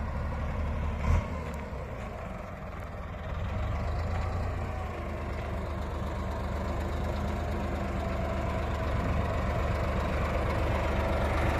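BEML BD65 crawler bulldozer's diesel engine running steadily as the dozer drives on a steering test run, growing louder toward the end as it comes closer. There is a single sharp knock about a second in.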